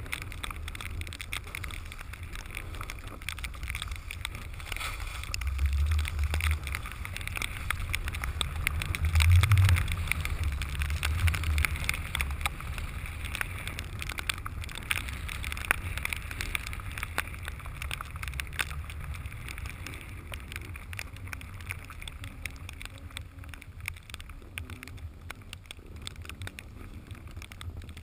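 Wind buffeting the camera's microphone, mixed with the hiss and scrape of a snowboard sliding and carving over snow. Louder gusts come about six and ten seconds in.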